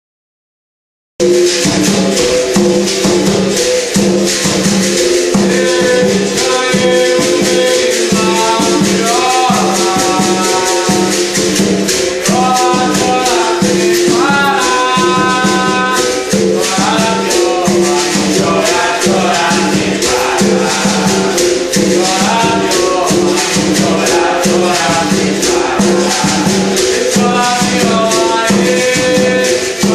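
Berimbau viola, its twanging bow tones shaken with a caxixi rattle, played with an atabaque hand drum. A man's singing joins a few seconds in. The music starts about a second in.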